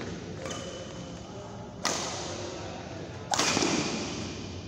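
Badminton rackets striking a shuttlecock in a large hall: a light hit, then two sharp cracks about a second and a half apart, each ringing out briefly.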